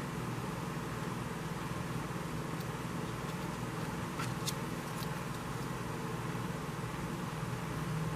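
Steady low background hum with a few faint light clicks about halfway through, small handling sounds at a craft table.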